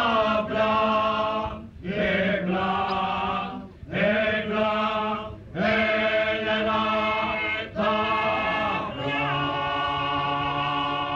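A group of voices singing a folk song in Venetian dialect in short phrases with brief breaks between them. From about nine seconds in, the closing phrase is held as one long note.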